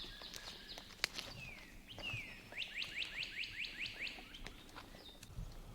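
Songbirds singing: a rapid run of repeated high slurred notes, then a second phrase of about eight quick sweeping whistled notes. A single sharp click about a second in.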